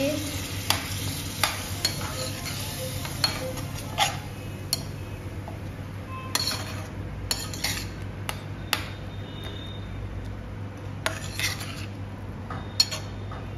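Metal spatula stirring and scraping a thick onion masala in a stainless steel pan, with irregular clinks and scrapes against the pan as the masala fries, over a steady low hum.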